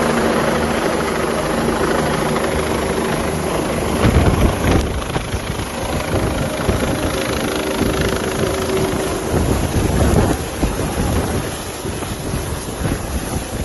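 Helicopter running close by, a steady engine hum under heavy wind buffeting on the microphone. The gusts are strongest about four and ten seconds in.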